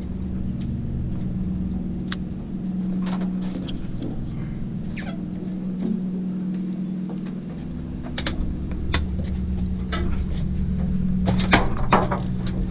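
A boat engine running steadily with a low hum, with scattered knocks and clicks of gear and a landing net being handled on the deck. The knocks come thicker near the end.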